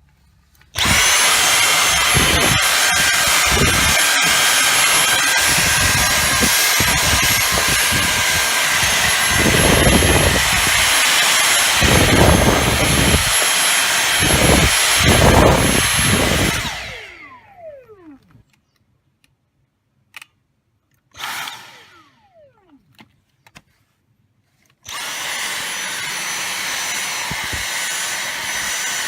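Dyson V6 Fluffy cordless stick vacuum switched on and running with a high motor whine, its airflow rushing unevenly as it works in the second half. Its motor winds down with a falling whine after about 16 s. There is a brief on-off blip near 21 s, then it starts again near 25 s.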